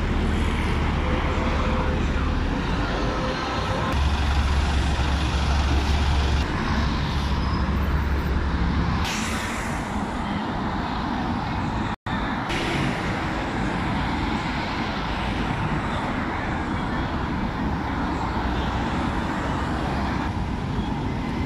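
Street traffic: a steady din of vehicles running and passing, with a heavy low rumble through the first half. The sound cuts out for an instant about halfway through.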